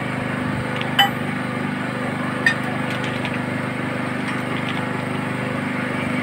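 Two sharp metallic clinks, about a second and a half apart, of steel parts or tools striking each other, each with a brief ring. They sound over a steady mechanical hum of a running motor.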